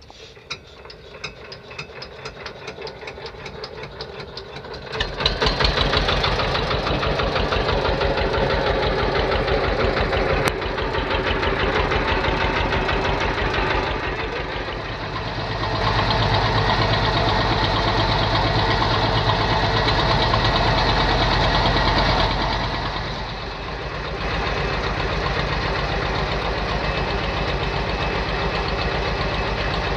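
Wooden fishing boat's engine starting up: a regular chugging beat that quickens and grows louder over the first five seconds. It then runs steadily as the boat gets under way, easing briefly twice.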